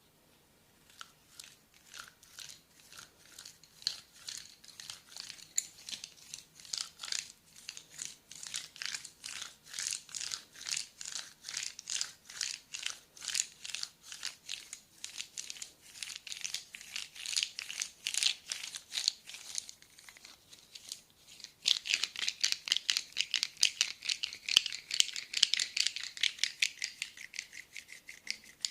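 Rapid rhythmic massage strokes on a person's back, about three to four a second, each a short scratchy rustle. They stop briefly about twenty seconds in, then resume faster and louder.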